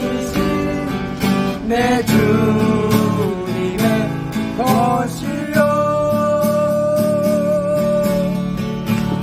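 A man singing a slow worship song to a strummed acoustic guitar, holding one long note for a couple of seconds past the middle.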